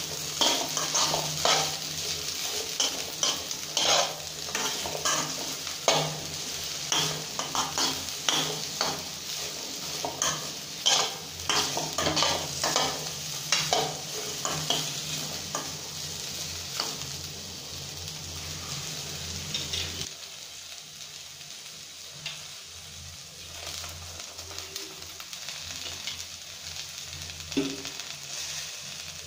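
Chopped okra sizzling in hot oil in a pan while a spatula stirs and scrapes it in quick, repeated strokes. About two-thirds of the way through, the stirring mostly stops and only a quieter frying sizzle remains.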